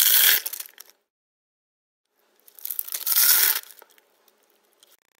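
Crisp, crunchy food being bitten and chewed close to the microphone: a crackling crunch that fades out about a second in, then a second crunching bite about two and a half seconds in, lasting about a second and a half.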